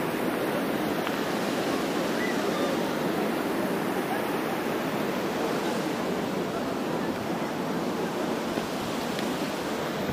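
Steady rushing of flowing water, such as a mountain stream.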